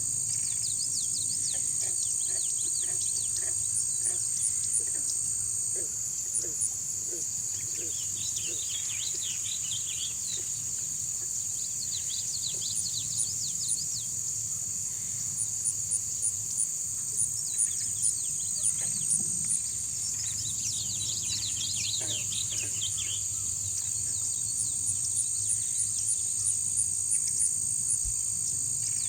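Chorus of frogs and insects calling: a steady high insect drone with rapid chirps above it, and clusters of quick frog calls that rise and fall away every few seconds.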